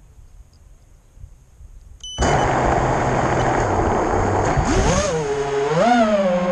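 Racing quadcopter's brushless motors and propellers spinning up suddenly about two seconds in, a loud rush of prop noise with a motor whine, heard from the drone's own onboard camera. Near the end the whine rises and falls twice as the throttle is punched and the drone lifts off, then holds a steady pitch.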